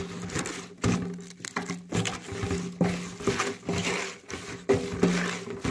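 Hands squeezing and tossing salted shredded cabbage and green onion in a metal bowl, kneading it to wilt: crunching and rustling in irregular strokes. A steady low hum runs underneath.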